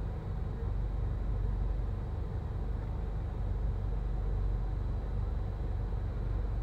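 A pot of water at a rolling boil on a stovetop burner: a steady, low, rumbling noise with no clear splashes or knocks.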